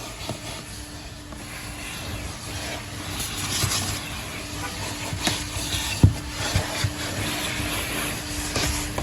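Coin-operated car vacuum running with a steady hum and an airy rush of suction that grows a few seconds in, with several sharp knocks as the nozzle bumps around the car's interior.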